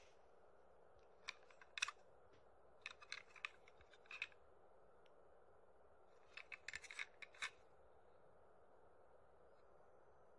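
Faint clicks and taps of a small plastic toy train car being turned over in the hand, in a few short clusters with a longer flurry past the middle, over quiet room hiss.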